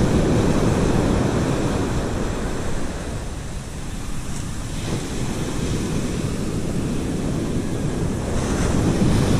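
Ocean surf breaking and washing up the beach, with wind buffeting the microphone. The wash eases a few seconds in and builds again near the end as another wave comes in.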